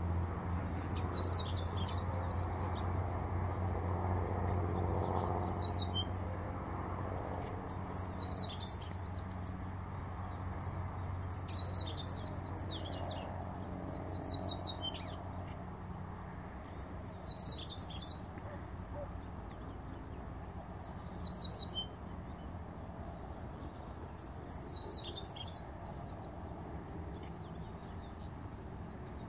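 A male double-collared seedeater (coleiro) sings in short, high, quick-trilled phrases about every three to four seconds, eight in all. A low steady hum runs underneath and fades after the first few seconds.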